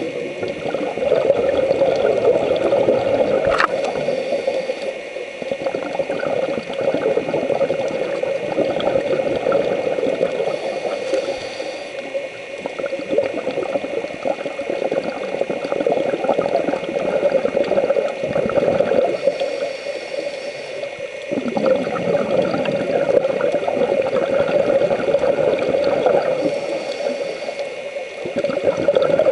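Scuba diving heard underwater: regulator breathing and bubbling exhaled air, with a surge of bubbles recurring every seven or eight seconds.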